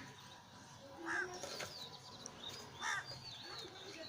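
A crow cawing twice, about a second and three seconds in, with smaller birds chirping in thin whistled notes behind it.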